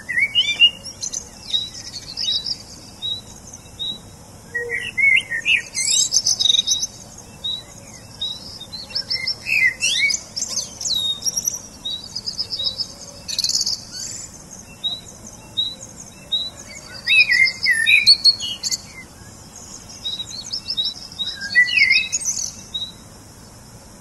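Small songbirds chirping and singing: a short high note repeated about twice a second, with bursts of quicker, varied twittering.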